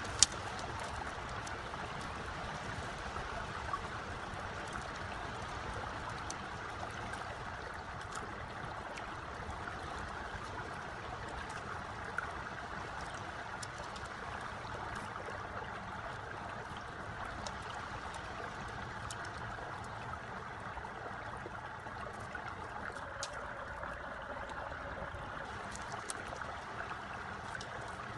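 Steady running water of a stream. A few light, scattered clicks come from thin bamboo strips knocking together as they are tied into a panel.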